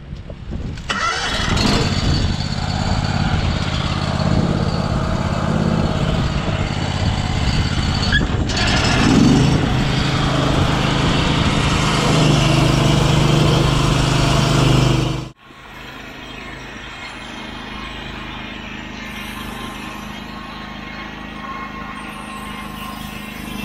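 EZ Boardwalk 40 bandsaw mill running, its engine under load as the saw head is pushed along a log and the blade cuts. About fifteen seconds in the sound cuts abruptly to a quieter, steadier run of the same mill.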